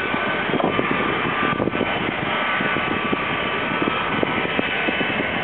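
Jet airliner engines running nearby: a steady high whine over a dense rushing noise with crackle through it.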